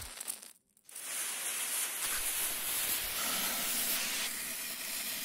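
Hand-held smoke bomb hissing steadily as it pours out smoke, the hiss coming in about a second in after a brief sharp sound at the start.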